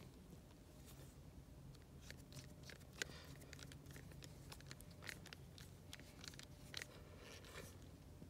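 Faint, scattered clicks and creaks of a screwdriver tightening the screws of a wire splice connector, with one sharper click about three seconds in.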